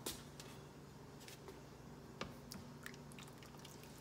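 Faint wet sounds and a few light clicks of a plastic ladle stirring and scooping thick hamburger stew in an Instant Pot's stainless steel inner pot, over a low steady hum.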